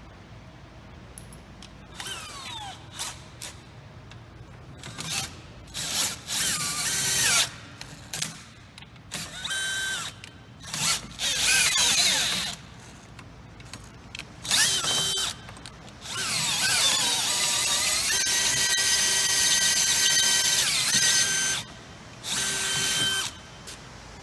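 Power drill boring into a vending machine's lock in repeated short bursts, the motor speeding up and slowing down each time, with a squealing pitch as the bit bites; one longer run comes about two-thirds through. The bit is grinding against the lock's hardened outer face, which it won't go through.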